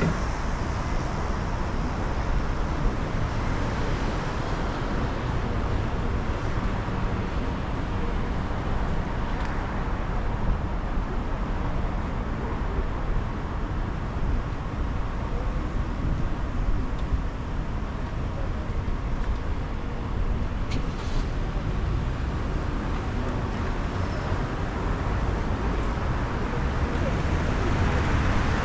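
Steady road noise of a car driving through city streets in rain: tyres on wet pavement and surrounding traffic, with a few faint, brief clicks.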